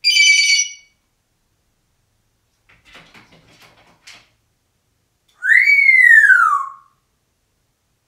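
African grey parrot making two loud calls: a short, steady beep at the start, then about five seconds in a whistle that rises and then falls in pitch. He has picked up his beeps from a newly installed home security system.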